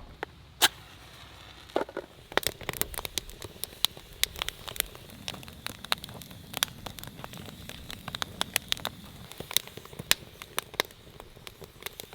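Wood fire crackling, with sharp irregular pops and snaps of burning firewood.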